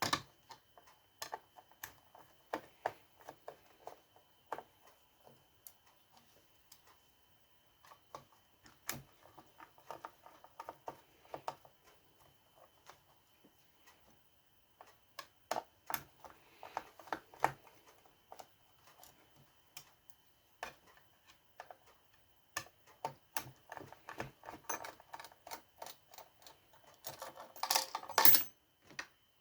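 Scattered light clicks and taps of hand tools and small saw parts being handled during disassembly, with a louder burst of rattling and scraping near the end.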